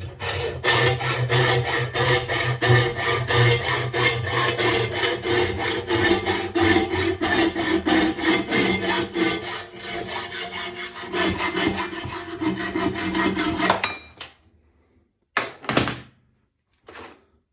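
A saw cutting through a steel Springfield rifle barrel to shorten it, in steady rhythmic strokes of about three a second. The sawing stops suddenly about 14 seconds in, and two brief sounds follow near the end.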